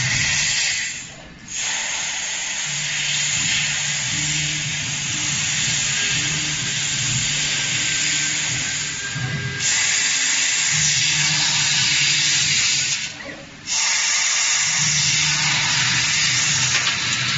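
Steady hiss of a 300 W CO2 laser cutter's assist gas and cut at the nozzle as it cuts 1.2 mm stainless steel sheet. The hiss drops out briefly twice, about a second in and again about four seconds before the end, as the head moves between cuts. Under it is a low hum from the machine that comes and goes.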